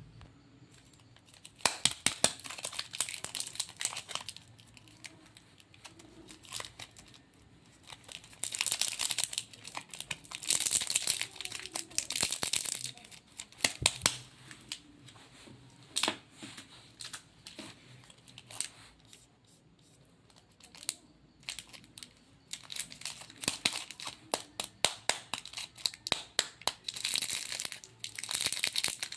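Candy packaging crinkling and tearing as it is unwrapped. The crackly rustling comes in three bouts, with sharp clicks and quieter pauses between them.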